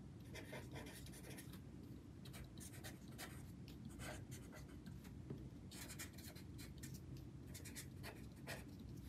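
A pen writing on a sheet of paper: faint, quick scratching strokes in short runs with brief pauses between words.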